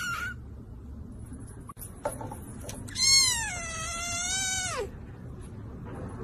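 Kittens meowing: the falling tail of one meow right at the start, then a single long, high-pitched meow about three seconds in that lasts nearly two seconds and drops in pitch at its end.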